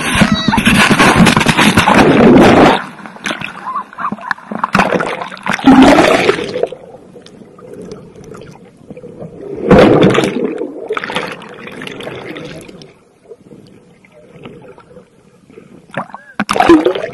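Riders tumbling off a jet ski into the sea: a loud rush of splashing water for the first couple of seconds, then muffled gurgling and sloshing in bursts with the microphone underwater. A short voice near the end.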